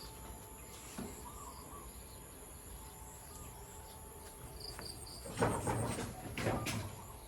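Faint outdoor ambience with insects and a few short bird chirps, then two louder brief noisy sounds about five and a half and six and a half seconds in.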